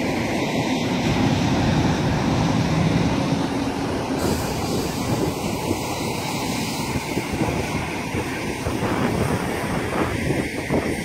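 Semi-truck pulling a loaded flatbed trailer driving past close by: a steady rumble of engine and tyres, with a low engine hum in the first few seconds.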